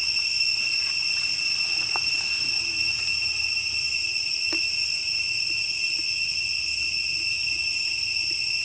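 Steady high-pitched insect chorus, trilling without a break. A few faint clicks or snaps come through underneath.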